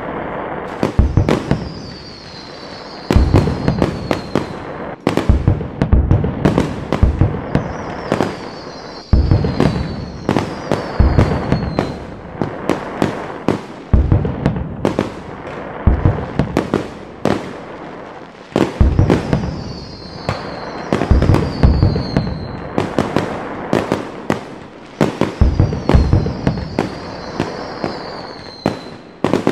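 Fireworks grand finale: aerial shells bursting in quick succession, a dense, loud run of booms and sharp reports. Four times, a high sound slides down in pitch over a second or two.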